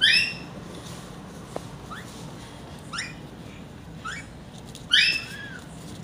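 Young African grey parrot squawking while it is held down: five short calls that rise in pitch, the loudest right at the start and about five seconds in, with weaker ones in between.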